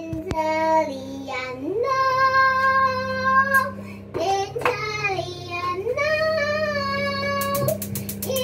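A young girl singing, holding long drawn-out notes with short gliding phrases between them, over a steady low hum.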